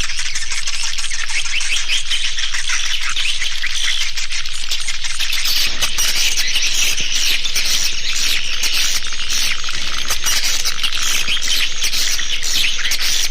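Swiftlets chattering: a dense, continuous mass of rapid high twitters and clicking chirps from many birds. This is a swiftlet call recording of the kind played to lure swiftlets into a nesting house.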